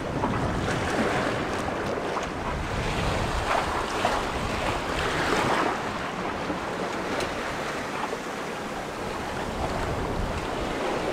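Seawater rushing and splashing along the hull of a sailboat under way in open ocean, with wind buffeting the microphone. The water noise swells and eases every second or two as the boat moves through the waves.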